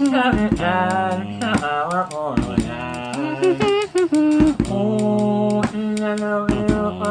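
Music: a voice sings long, wavering held notes over a steady low drone, with quick percussion strikes throughout.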